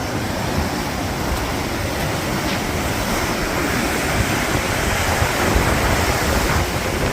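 Sea surf washing onto the beach as a steady rushing, with wind rumbling on the microphone.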